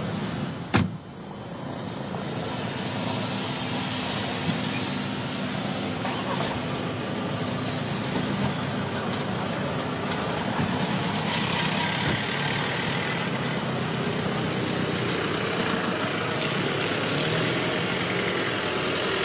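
Jet engines of Air Force One, a four-engine Boeing 747, running as the airliner taxis: a steady rushing hum that grows slowly louder. A sharp click about a second in is the loudest moment.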